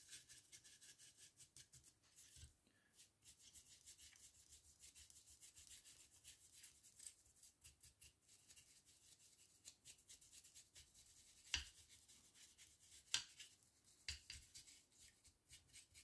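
Faint, fast scratchy rubbing of a dry brush stroked over a plastic miniature's wings, with two small sharp clicks about a second and a half apart in the last third.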